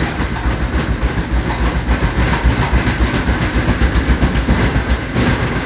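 Samsung front-load washer shaking violently in a runaway spin, a loud fast rumbling clatter of the drum and loose cabinet panels banging; the machine is failing, its top panel already shaken off.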